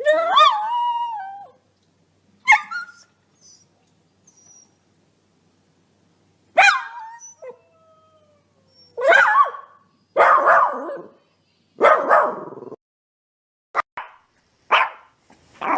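Dogs barking, yelping and whining, about nine separate calls one after another with silences between. The first calls glide and wail in pitch, while those near the end are short, sharp barks.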